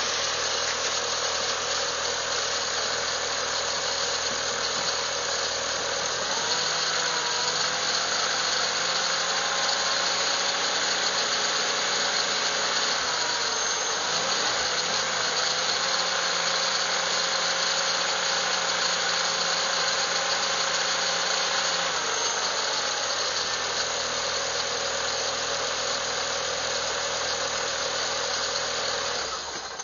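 Audi TT engine running steadily at idle: a dense hiss with a faint whine through it, its pitch shifting slightly a few times.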